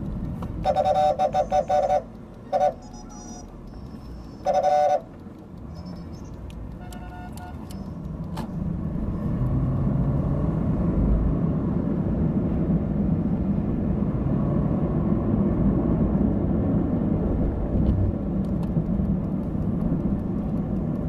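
Vehicle horns honking in city street traffic: a run of quick honks about a second in, a short one, another about five seconds in, then fainter horns further off. Under them a steady traffic rumble grows louder from about eight seconds on.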